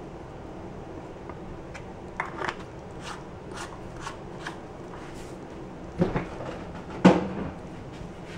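Light clicks and taps of things being handled in a kitchen, then two louder knocks about six and seven seconds in as a refrigerator door is pulled open.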